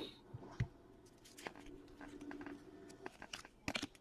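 Trading cards being handled and flicked through: scattered light ticks and soft rustles, with a louder run of clicks near the end.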